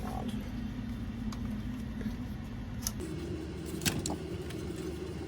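Light clicks and rattles of plastic toy-blaster parts being handled, over a steady low hum that shifts higher in pitch about three seconds in.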